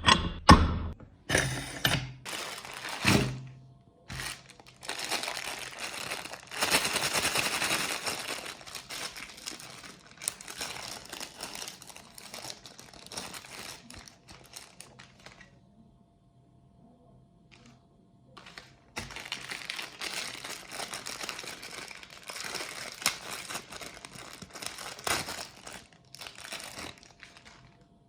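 Irregular crinkling and crunching as ice cream and its plastic wrapper are handled. There are a few sharp knocks in the first few seconds and a short quiet gap a little past the middle.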